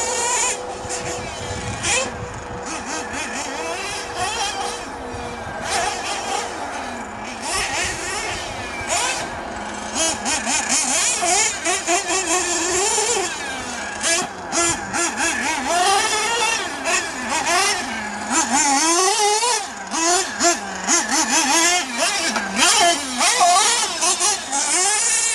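Mugen MBX6T R/C truggy's small engine revving up and down again and again as it is driven hard, a high buzzing whose pitch climbs and drops every second or two.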